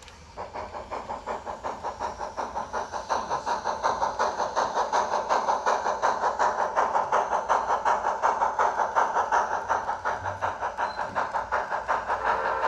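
Sound-equipped HO scale Great Northern steam locomotive model chuffing from its onboard speaker, an even hissing beat of about five chuffs a second. It starts about half a second in and grows louder over the first few seconds.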